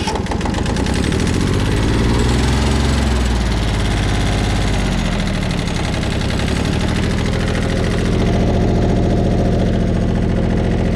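Kubota compact tractor's small diesel engine running just after it has started. Its speed shifts between about two and five seconds in, then it settles into a steady run.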